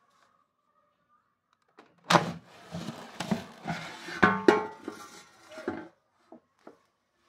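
Lock&Lock air fryer's plastic basket drawer pulled out of its housing: a sudden clunk about two seconds in, then about four seconds of plastic scraping and rattling with another knock midway, and two light clicks near the end.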